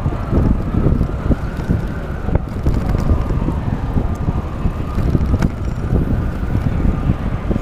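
Wind rumbling on a GoPro's microphone while riding a bicycle along a busy city street, with traffic noise underneath.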